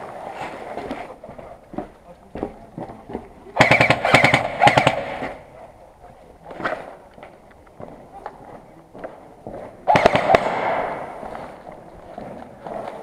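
Airsoft guns firing rapid bursts of shots: a cluster of bursts a few seconds in lasting about a second and a half, and another shorter burst near the ten-second mark, with scattered clicks and knocks between.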